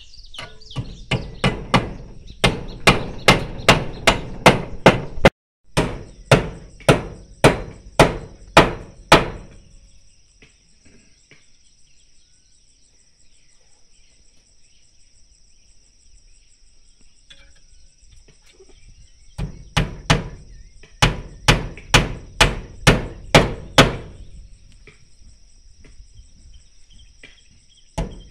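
Hammer driving nails to fix gutter brackets, struck in steady runs of about two blows a second, with a long pause in the middle before a second run. A steady high insect trill carries on behind.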